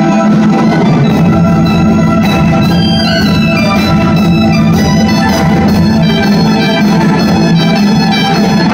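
A Chinese orchestra playing at full strength, with strings and sheng holding steady low chords while a wind soloist plays a stepping high melody above them.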